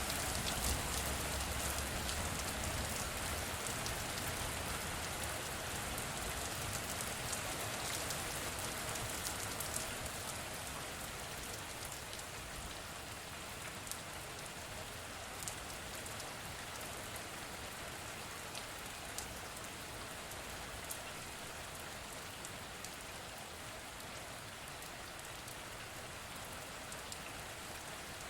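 Rain falling steadily, with individual drops clicking and pattering close by, slowly growing a little quieter.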